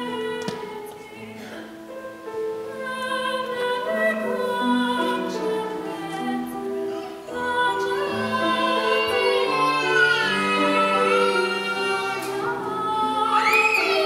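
A classically trained soprano singing an operatic piece with vibrato, accompanied by a grand piano. Her voice swells louder about halfway through.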